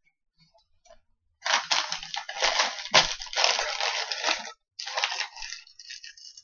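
Paper burger wrapper crinkling and rustling as the burger is handled and unwrapped, in irregular bursts of crackle starting about a second and a half in, with one sharp knock about three seconds in.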